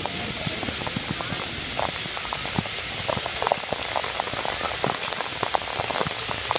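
Steady rush of water in a water-park lazy river, broken by many small splashes and drips.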